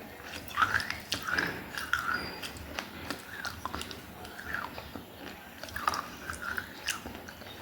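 Close-miked biting and chewing of baked clay, pieces of a clay diya breaking and crackling between the teeth in irregular crunches.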